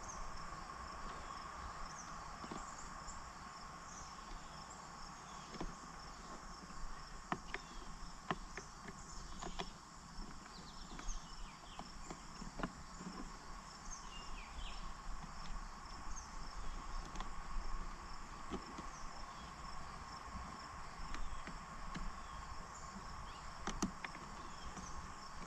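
Steady insect chirring in the background, with scattered light clicks and knocks from hands working the steering cable and braided line.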